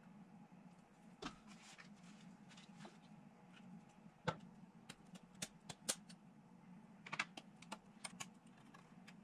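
Light plastic clicks and taps as a plastic model-kit sprue frame and hobby clippers are picked up and handled on the desk, scattered irregularly with one sharper knock about four seconds in, over a faint steady hum.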